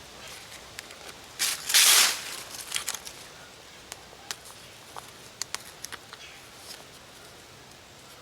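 Rustling and handling noise, loudest for about half a second near two seconds in, followed by scattered light clicks and snaps over a quiet outdoor background.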